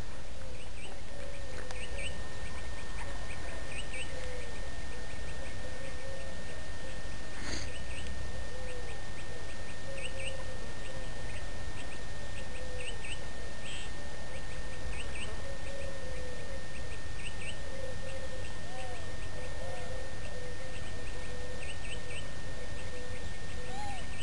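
Birds calling at dawn: a low call repeating about once a second, mixed with clusters of short high chirps, over a steady low background noise and a faint constant high whine. A single click comes about seven seconds in.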